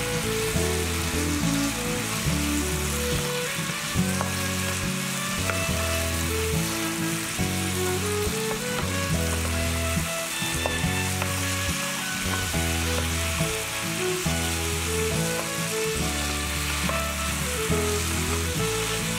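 Pork ribs in a thick sauce sizzling in a nonstick frying pan as a wooden spatula stirs them. Background music with a bass line that changes note about every second plays over the sizzling.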